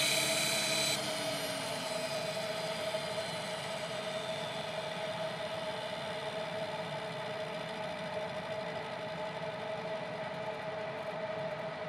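Align T-Rex 600 radio-controlled helicopter sitting on the ground after landing: a high whine cuts out about a second in and a falling tone shows the rotor winding down. After that a steady mechanical running sound with one steady tone goes on.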